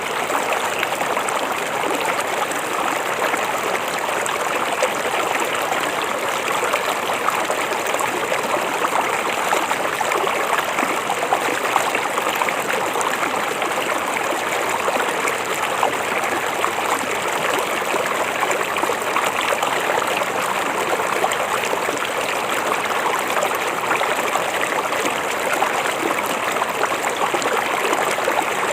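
River water flowing steadily, a continuous even rush with fine splashing and no break.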